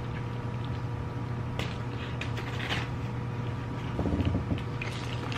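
Soft clicks and rustles of someone eating and handling food, with a louder low thump about four seconds in, over a steady low hum.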